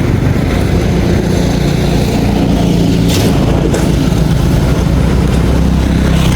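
Floodwater rushing hard through a bridge channel: a loud, steady rush with a low hum underneath.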